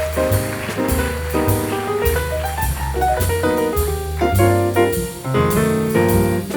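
Background music: jazz with piano, bass and drums.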